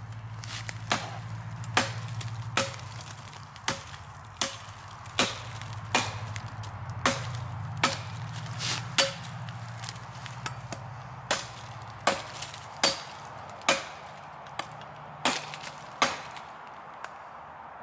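Antarctica folding survival shovel's axe edge chopping into wood by hand: about twenty sharp strikes at an even pace, a little under one a second, over a steady low hum. The strikes stop shortly before the end.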